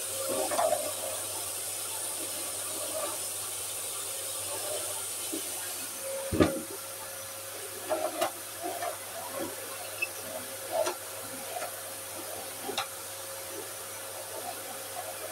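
Vacuum cleaner running steadily with a constant whine. One sharp knock comes about six seconds in, and several lighter knocks and clicks follow.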